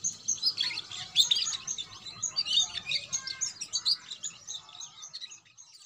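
A young domestic canary, about two months old, singing a fast, continuous run of high twittering chirps and short whistled notes. The song thins out and fades near the end.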